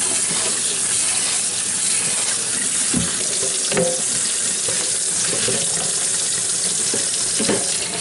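Pull-out kitchen sink sprayer running, spraying water over kale leaves in a colander in a stainless steel sink. A few short knocks come as the leaves are handled.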